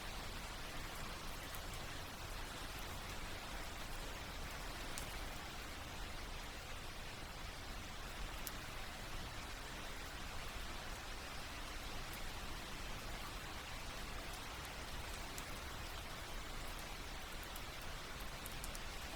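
Steady rain falling, an even patter with occasional distinct drops.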